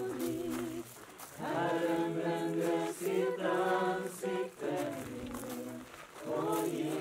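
Slow vocal music: voices singing long held notes with a slight waver, in phrases of a second or two with short breaks between them, over a steady low note.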